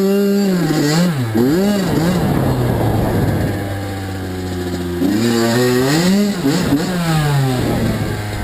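Kawasaki KX85 two-stroke single-cylinder dirt bike engine revving up sharply under throttle, its pitch rising and falling as the throttle is worked. It drops back to a low steady run in the middle, then climbs and swings up and down again about five seconds in before easing off.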